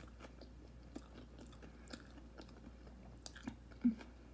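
Close-up mouth sounds of a person chewing a bite of Italian-style sub sandwich: small irregular wet clicks, with a short louder low sound shortly before the end.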